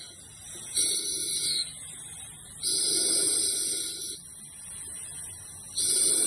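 Husky air-operated diaphragm pump cycling, with a loud hiss of exhaust air on each stroke, three times, and a fainter hiss between strokes.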